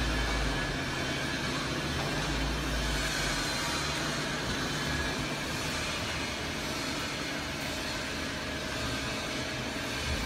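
Steady workshop background noise, a mix of mechanical hum and hiss, with short low rumbles near the start and again about two seconds in.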